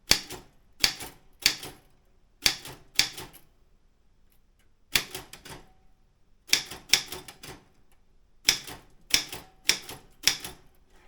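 Daro Optima M16 manual office typewriter being typed on: about sixteen separate keystrokes, each a sharp clack, struck slowly and unevenly in small groups, with a pause of about a second and a half near the middle.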